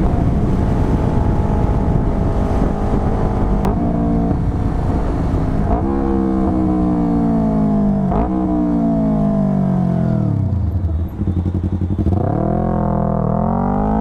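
Yamaha R3's 321 cc parallel-twin engine through a full Akrapovic exhaust, heard from on the bike. It holds steady revs, then slows with the revs falling, broken by two downshifts that briefly lift the pitch. It drops near idle about eleven seconds in, then revs up again as the bike pulls away.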